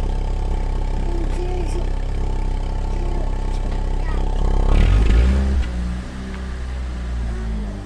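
Fiat Palio 1.0 engine running through a sink trap fitted to the exhaust as a homemade turbo-sound mod, with a brief rev about five seconds in before it settles back to a lower idle.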